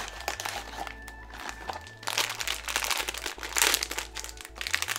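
Blind-box figure's sealed wrapper bag crinkling as it is handled and torn open, quieter at first and turning to dense crinkling from about two seconds in.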